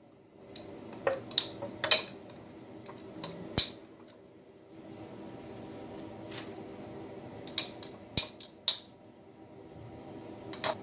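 Metal spoon clinking against a glass jar while ube jam is scooped out: about eight sharp clinks, scattered and uneven, some in quick pairs.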